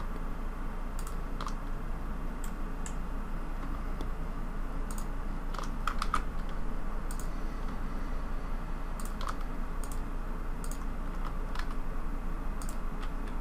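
Computer keyboard keystrokes and clicks, about fifteen, sparse and irregularly spaced, over a steady low hum and hiss.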